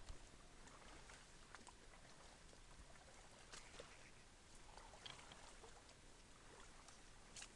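Near silence: faint background hiss with scattered soft clicks and rustles, a little more noticeable about three and a half seconds in and near the end.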